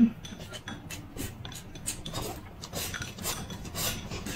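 Chopsticks clicking against ceramic bowls while two people eat, with noodles slurped and shovelled from the bowls in the second half. There is a short low bump right at the start.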